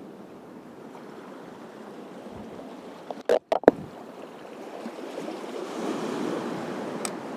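Small waves washing over a shallow reef flat, with wind on the microphone. A quick cluster of sharp clicks or knocks comes about three and a half seconds in, and the wash swells louder near the end.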